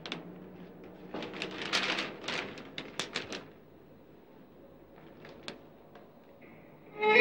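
A newspaper rustling and crackling as it is handled and opened: a cluster of quick papery rustles over a couple of seconds, then a few faint ticks.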